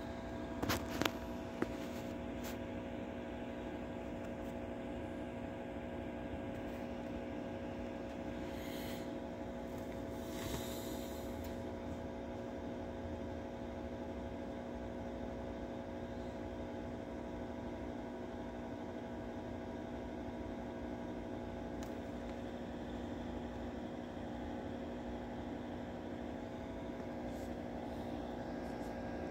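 Steady electrical or machine hum made of several held tones, with a few sharp clicks about a second in and two brief rustles around ten seconds in.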